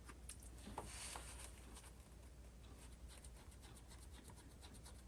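Faint, quick scratching and rubbing on small metal parts, a rapid run of light strokes, against near silence.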